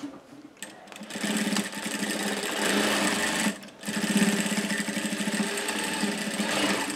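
Industrial straight-stitch sewing machine running, stitching through layered fabric. It starts about a second in, stops briefly just after the halfway point, then runs again.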